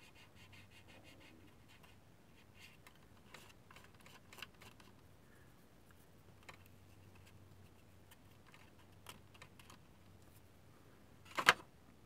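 Faint, sparse light clicks and scratches of small hobby tools handled at a workbench while excess water is wicked from under a freshly applied decal to remove bubbles. A short, louder rustle comes near the end.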